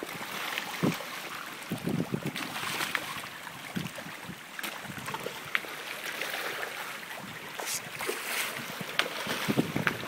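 Water splashing and lapping, with scattered small sharp splashes from fish churning at the surface, and gusts of wind on the microphone.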